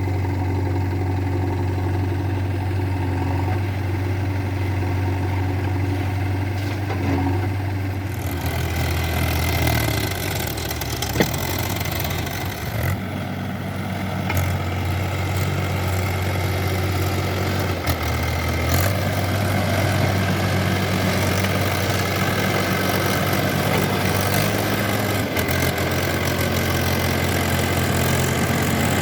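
Diesel engines of a backhoe loader and tractors running steadily at work. About 8 seconds in the engine note changes and a harsher, fuller noise comes in as the load rises.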